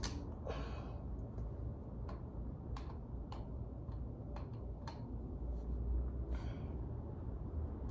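Scattered light clicks and taps, with a couple of short scrapes, from hand work on a brake pad and caliper, over a steady low rumble.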